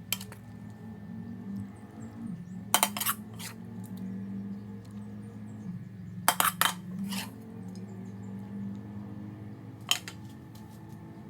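Metal utensils clinking against dishes or a pan in short groups of sharp clicks, about three seconds apart, over a steady low hum.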